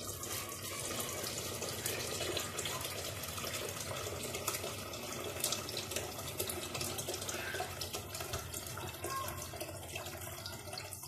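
Hot water pouring in a steady stream into an aluminium pressure cooker of meat and turnips, adding the cooking liquid for the couscous broth.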